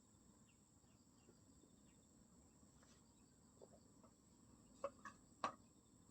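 Faint, steady high-pitched chirring of crickets or other night insects. Three short clicks or knocks come close together a little before the end, the last one the loudest.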